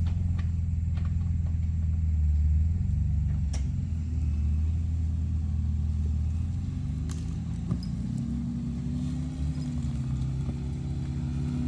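Jeep engine running at low revs as the Jeep crawls along the trail, a steady low drone whose note rises a little about eight seconds in, with a few faint knocks.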